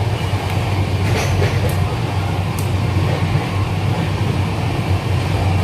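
Steady low rumble and hum inside the guard cabin of an LHB luggage-generator-brake coach. A few faint clicks come in the first three seconds as the taillight signal switches on the panel are worked.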